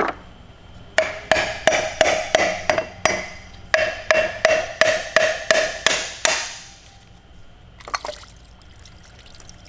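Hammer blows on metal, about three a second in two runs of seven or eight, each strike ringing briefly, as the aluminium water pump on an Audi 3.0T V6 is knocked loose from the front of the block.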